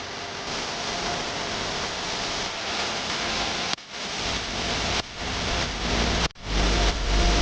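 Steady hiss of rain, broken off sharply a few times, with heavy low rumbling of wind on the microphone near the end.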